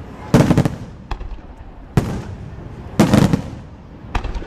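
Fireworks display: loud bangs of exploding shells about once a second, some in quick clusters of several. Each bang trails off in an echo.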